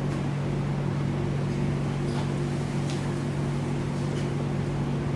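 Steady low machine hum, with two faint scrapes of a metal carving instrument on the carving block, about two and three seconds in.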